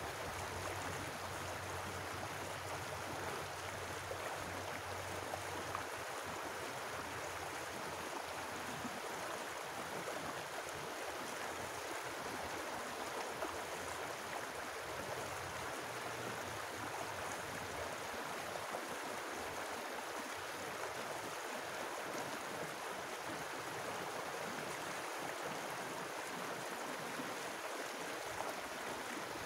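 Shallow stream flowing over rocks in a riffle, a steady rushing burble of water.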